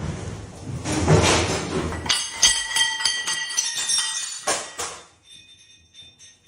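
Clattering and clinking of hard objects. A rough clatter comes first, then several sharp knocks with a lingering ring, and a last short clatter about five seconds in.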